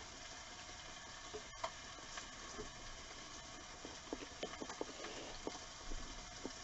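Faint steady sizzle of chicken cooking on a George Foreman electric grill, with scattered small clicks and taps, more of them in the second half.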